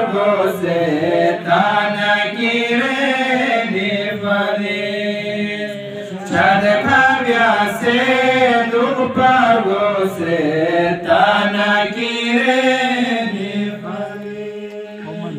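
A man's voice chanting a Balti devotional qasida through a handheld microphone, in long ornamented phrases that glide up and down in pitch, over a steady low tone.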